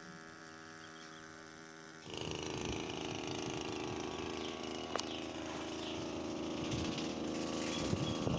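Small petrol engine of a backpack power sprayer running steadily, faint and distant at first, then much louder and close up from about two seconds in, with a rushing noise over it and a single sharp click partway through.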